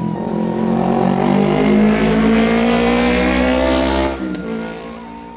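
A vehicle engine accelerating, its pitch climbing steadily for about four seconds before the sound drops away suddenly and fades.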